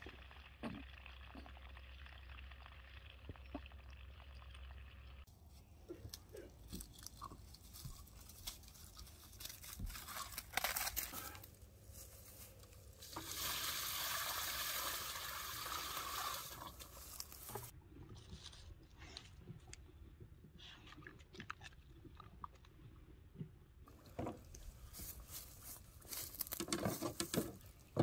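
Footsteps crunching in dry leaf litter and scattered handling knocks around a hand-operated washing machine, with a few seconds of steady rushing noise about halfway through.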